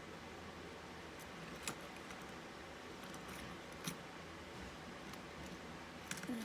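A few light metal clicks and taps as lock-picking hooks are handled and swapped, spaced a second or two apart with a small cluster near the end, over a faint steady hiss.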